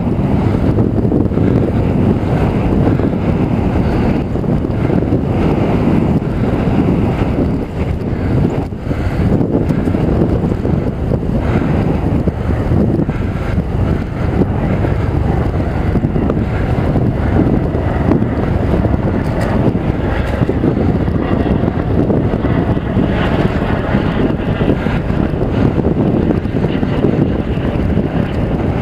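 Steady wind rush on a helmet-mounted camera's microphone from riding a mountain bike, loud and strongest in the low range, with no breaks.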